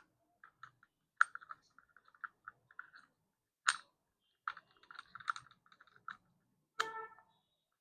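Irregular light clicks and rattles from a Glock 19 replica CO2 BB pistol being handled while a CO2 cylinder is fitted into its grip. A sharper metallic click near the end rings briefly.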